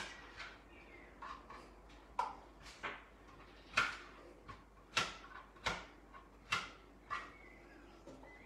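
Kitchen knife knocking on a thin plastic chopping board as strawberries are sliced: about a dozen sharp, separate knocks, irregularly spaced half a second to a second apart.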